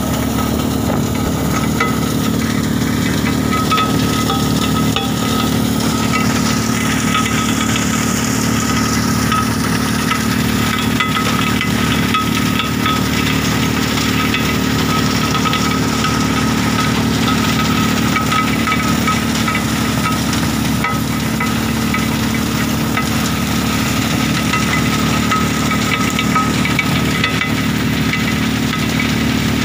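Stone-crushing plant machinery running steadily: a vibrating pan feeder and its drive hum without a break while crushed stone rattles in the feeder's steel pan.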